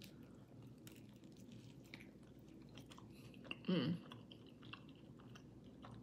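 A person chewing a mouthful of burrito close to the microphone, with soft wet mouth clicks, and a short hummed "mm" falling in pitch about three and a half seconds in.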